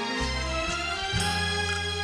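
Instrumental background music: sustained chords over a low bass line that changes note about once a second.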